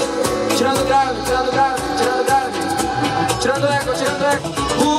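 Karaoke backing track playing loudly through a JBL PartyBox On the Go portable party speaker, with a man's voice singing along through the speaker's microphone over a steady beat.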